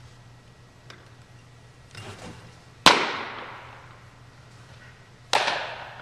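Baseball pitch smacking into the catcher's mitt: one sharp, loud pop that rings out in a long echo through the big warehouse, with a softer scuff from the pitcher's stride about a second before it. A second, slightly softer smack with a similar echo follows about two and a half seconds later.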